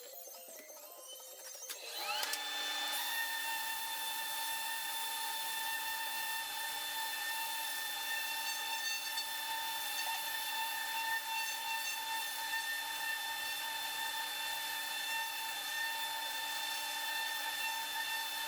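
Handheld electric power tool whining up to speed about two seconds in, then running steadily at one constant pitch as it works the wood of a teak table.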